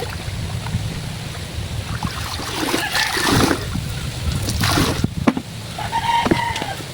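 Water sloshing and splashing as clothes are washed by hand in a basin, in surges, over a steady low rumble of wind on the microphone. A rooster crows near the end.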